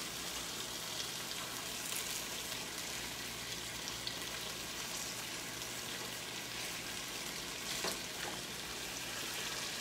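Boneless chicken thighs searing in butter and olive oil in a skillet: a steady, even sizzle, with a couple of faint clicks from a utensil.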